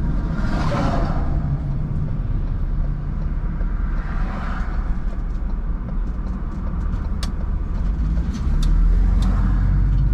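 Vehicle engine and road rumble heard from inside the cab as it drives in. The rumble grows louder near the end, and a few sharp clicks sound in the last few seconds.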